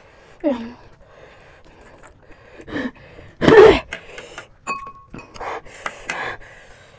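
Gasps and breathy exhales from people eating very spicy panipuri, the loudest a short voiced 'hah' about three and a half seconds in. A metal spoon clinks briefly on a glass bowl a little before five seconds.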